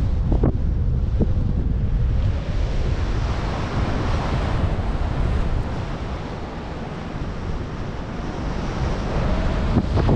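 Airflow of a paraglider in flight rushing and buffeting over the microphone, a steady wind noise that eases a little past the middle and builds again near the end.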